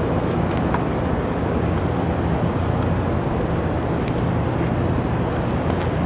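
Blizzard wind rushing steadily over the microphone, with a steady low hum underneath.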